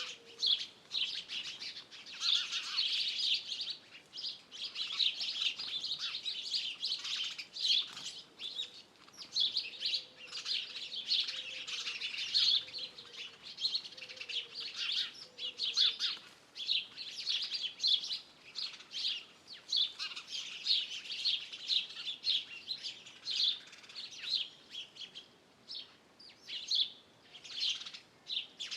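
A dawn-chorus-like mix of many songbirds chirping, trilling and singing over one another without a break, high and busy. Faint low repeated notes sound beneath them in the middle stretch.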